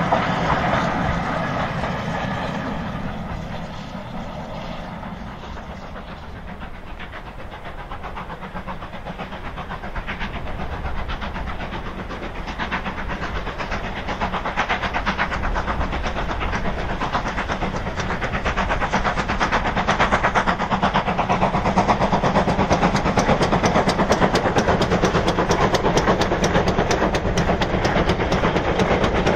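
A train fades into the distance over the first few seconds. Then a steam locomotive hauling a long train of box vans comes closer and passes, its rhythmic beating and the wagons' clatter over the rail joints growing steadily louder toward the end.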